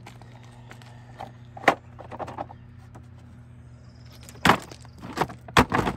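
A hard plastic folding camp toilet being handled and set up on gravel: a sharp click about two seconds in, then several loud plastic knocks and clunks near the end as it is unfolded and set down. A steady low hum runs underneath.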